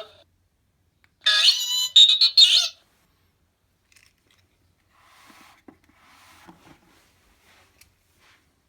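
BB-8 droid beeps and warbling chirps played from an R/C sound board on a full-size BB-8 replica: one loud burst of quickly warbling, pitch-sliding tones lasting about a second and a half, starting about a second in. Fainter, softer sounds follow a few seconds later.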